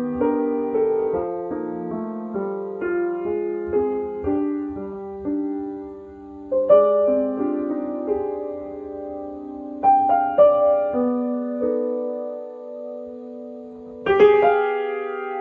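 Solo piano playing a slow ballad: single notes and chords struck and left to ring and fade, with louder chords about halfway through, about two-thirds in and near the end.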